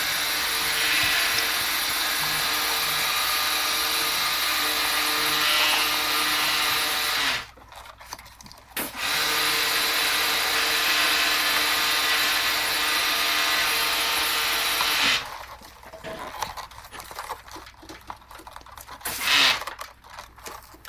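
A power tool's motor runs steadily, stops about seven seconds in, starts again a second and a half later and stops for good about fifteen seconds in. After that come quieter handling noises and one short, louder burst near the end.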